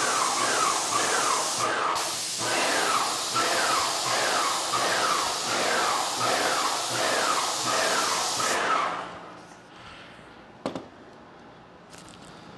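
Graco Magnum X5 airless paint sprayer spraying primer: a steady hiss with the pump beating at about two strokes a second, broken briefly near two seconds in. The spraying stops about nine seconds in, and a single click follows near eleven seconds.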